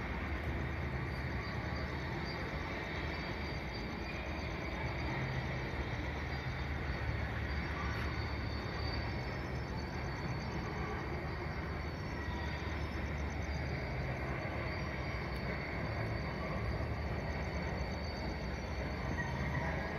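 A steady low rumble of vehicle noise under an even hiss, with no distinct events.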